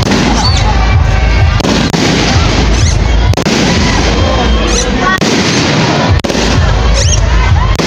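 Aerial fireworks shells bursting overhead in quick succession: a continuous barrage of bangs and crackling.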